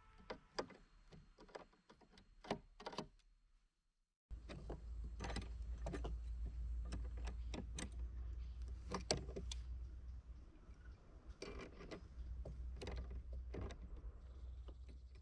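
Faint, irregular clicks and knocks, as of objects being handled. From about four seconds in a steady low hum sets in beneath them, and the clicks keep coming until near the end.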